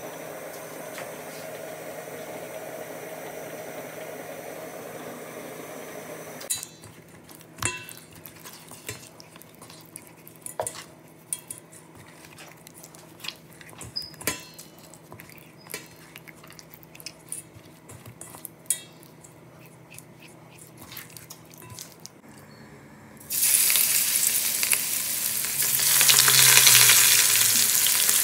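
A steady hum, then scattered light clicks and taps as whole mackerel are handled and rubbed with spice paste in a metal bowl. In the last five seconds, hot oil sizzles loudly and suddenly as the spice-coated mackerel fry in a frying pan.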